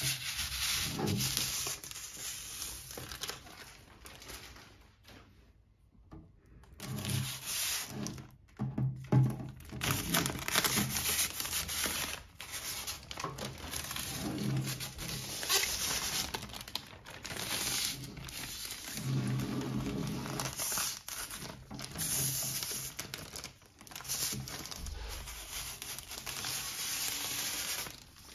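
Clear protective plastic film being peeled off an orange acrylic cover, crinkling and rustling in bursts, with a short pause about five seconds in.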